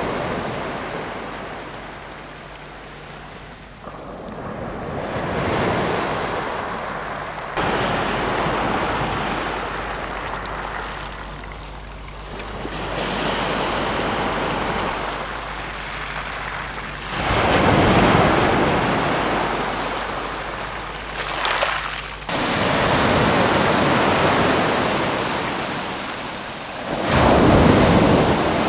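Sea waves breaking and washing up a shingle beach over the pebbles, the surf swelling and fading in surges every few seconds.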